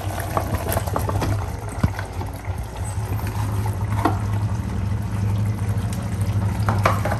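Simmering coconut masala bubbling in a clay pot as raw anchovies are slid off a plastic cutting board into it, with a few soft knocks and wet plops, over a steady low hum.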